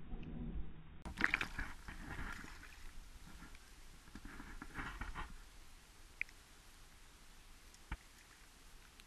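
Muffled underwater sound for about a second, then water splashing in two bursts as a hooked fish is reeled in beside a small aluminium boat. Two short sharp clicks follow later.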